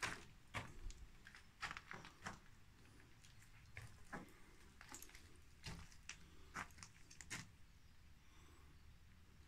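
Faint, irregular crunching footsteps and scuffs on a gritty concrete floor in a small bare room, roughly one every half second to a second.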